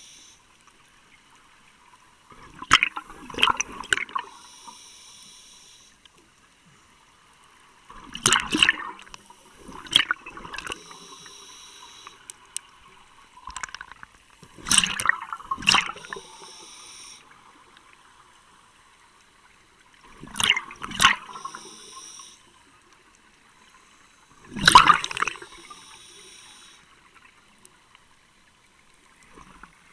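Scuba breathing through a regulator underwater: loud rushes of exhaled bubbles about every five seconds, six in all, each followed by a fainter hiss from the regulator.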